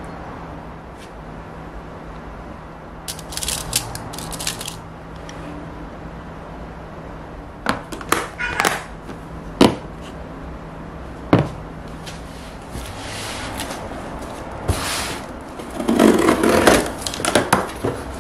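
A fork scraping and tapping in plastic lunch boxes, then a few sharp clicks as the boxes' snap-lock lids are pressed shut. Near the end, louder rustling and scraping of cardboard as a box is opened.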